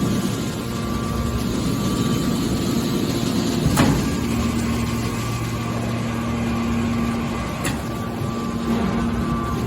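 Hydraulic baler running with a steady machine hum, with a sharp knock about four seconds in and a lighter one near eight seconds.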